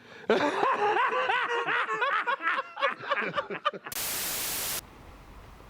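A person laughing in quick repeated bursts for about three and a half seconds, then an abrupt, even burst of static hiss lasting about a second that cuts off suddenly.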